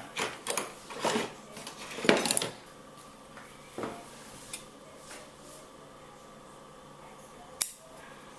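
Hand pruning tools handled while a branch is cut off a young Scots pine bonsai: a few rustling, scraping sounds in the first two and a half seconds, then scattered clicks of metal, with one sharp click near the end.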